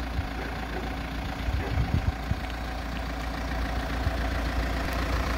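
VW T5 Transporter engine idling steadily, with a few low thumps about a second and a half to two seconds in.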